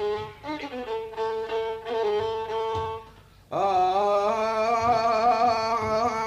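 Instrumental break in an Arabic folk song: a violin plays the melody in gliding phrases, dips briefly just past the middle, then slides up into a long held note with vibrato.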